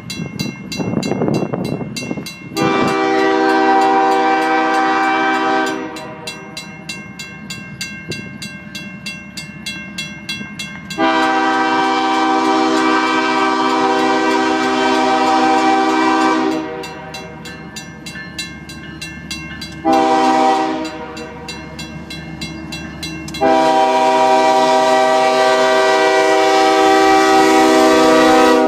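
Approaching freight locomotive sounding its air horn for the grade crossing in the standard long, long, short, long pattern, the last blast held as the locomotives reach the crossing. Underneath, the crossing signal's WCH mechanical bell rings in rapid, steady strokes.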